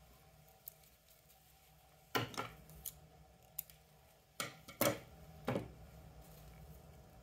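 Scissors snipping the stems of artificial flowers: a handful of sharp cutting clicks between about two and six seconds in, the loudest near the start and middle of that stretch.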